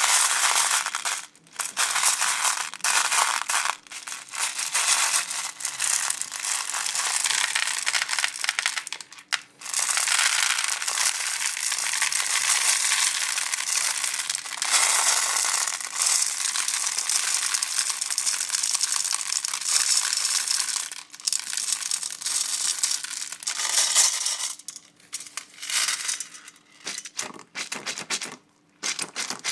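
Close-miked crackling and crunching of slime being mixed with small gum balls, in long dense stretches broken by short pauses.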